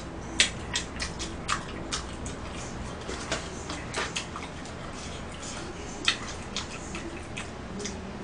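Close-up eating sounds: irregular sharp mouth smacks and clicks from chewing tteokbokki, with small clicks of chopsticks picking food from a plastic container.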